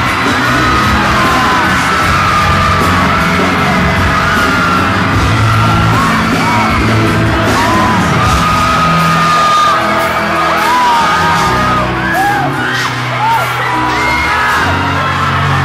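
Live pop concert recorded from the audience: the band's music and singers through the PA, with a loud crowd yelling, whooping and singing along over it.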